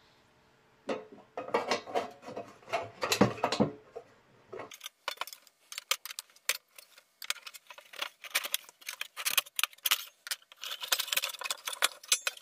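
Light metal clinking, tapping and scraping as a thin bent metal bracket is handled against a desk lamp's steel shade, in quick irregular clicks. The first few seconds are fuller handling noise; after about five seconds the clicks are thinner and sharper.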